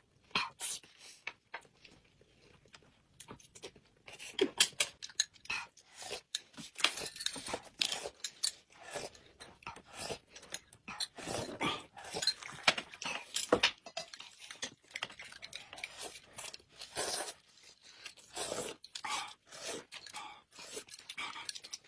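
Close-miked eating: chewing and slurping of noodles, egg and spoonfuls of thick corn soup, heard as irregular short wet smacks and clicks.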